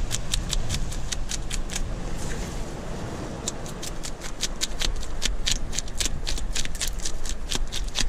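Parrotfish being scaled by hand: a quick, irregular run of sharp scraping clicks, several a second, as the large scales come off, over a low steady rumble.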